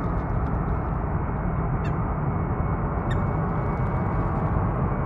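Jet engines of a Boeing airliner running at takeoff power on the runway: a steady rumble with a thin high whine. Two short high calls cut through, about two and three seconds in.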